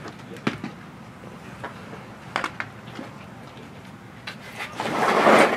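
A pitched baseball popping into the catcher's mitt with a sharp crack about half a second in, and a couple of lighter knocks a couple of seconds later. A louder rushing noise swells near the end.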